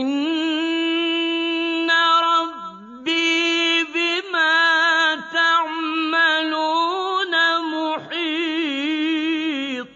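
A single voice reciting a Quranic verse in Arabic, chanted in long, melodic held notes with wavering ornaments. It breaks off briefly about two and a half seconds in and a few times after.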